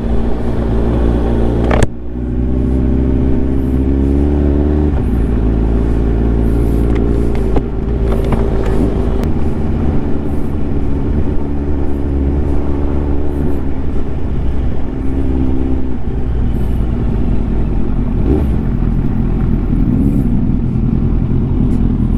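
Kawasaki Ninja sport motorcycle's engine running at low speed on a dirt track, its note rising and falling with the throttle, with a brief drop about two seconds in as a gear changes. Wind and riding noise run underneath.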